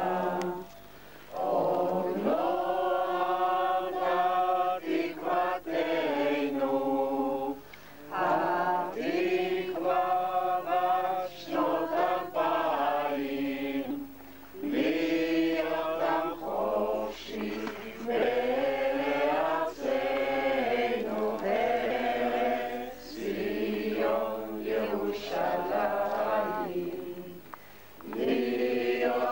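Slow chanted singing in long phrases, with held notes that waver and bend, separated by brief pauses.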